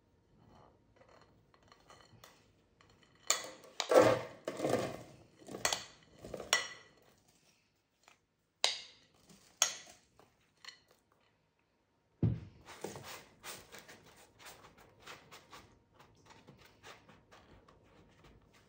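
A metal spoon scraping and clinking against a glass bowl as crumbly butter dough is spooned out, louder in a run of strokes and then two sharp clicks. About twelve seconds in there is a thump, then softer, quicker scraping and patting as the crumbs are spread and pressed into a paper-lined springform pan.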